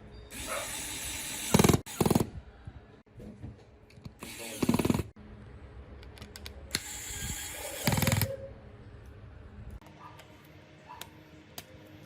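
A small power tool running in three short bursts of a second or two each, with light clicks and ticks near the end.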